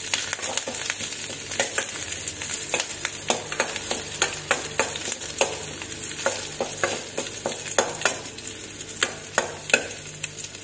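Curry leaves and crushed garlic frying in a little hot oil in a stainless-steel kadai, sizzling steadily, while a steel spatula stirs them and clinks and scrapes against the pan in irregular sharp taps.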